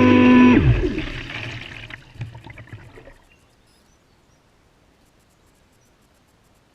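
Traxxas Spartan RC boat's electric motor running with a steady whine, cutting off about half a second in with a quick downward glide in pitch. Water splashing and trickling follows and fades away by about three seconds in, leaving near silence.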